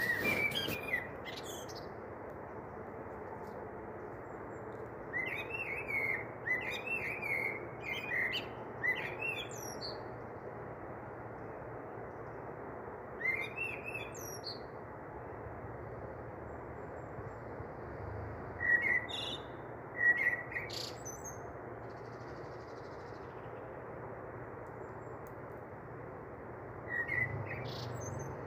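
A small bird chirping in short bouts of quick high chirps with pauses between them, over a steady background hiss.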